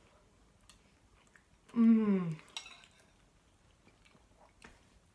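Faint clicks of a fork and spoon against bowls while eating. About two seconds in, one short vocal sound falling in pitch comes from a person tasting the food.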